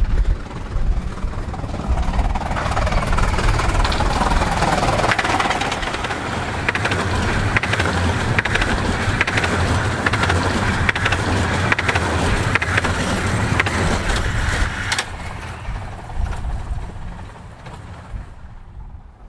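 Miniature 15-inch gauge steam train running past at speed: a low rumble with a rapid clatter of wheels clicking over the rails, building over the first few seconds. The clatter stops abruptly about fifteen seconds in and the rumble fades away.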